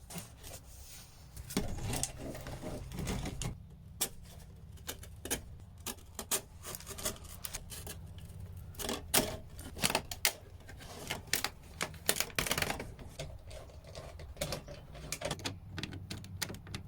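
Irregular clicks, taps and small knocks of hard parts being handled and pushed together while a heater-duct splitter is fitted, over a low steady hum.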